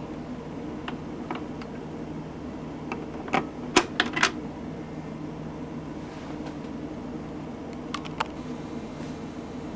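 General Electric portable record player running: a steady motor hum with scattered mechanical clicks, and a cluster of louder clunks about three and a half to four seconds in.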